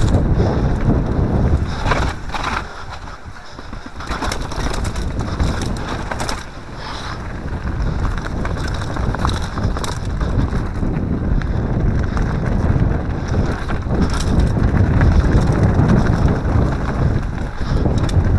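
Mountain bike tyres rolling fast over a rough gravel and stone trail, crunching, with frequent sharp clatters from stones and the bike and wind rushing over the microphone. The noise eases briefly about three seconds in and again around six seconds, then builds again.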